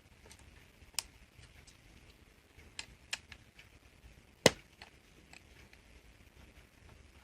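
Scattered sharp clicks and taps from handling a laptop's 2.5-inch hard drive and its mounting frame while it is being taken apart, with the loudest single click about halfway through.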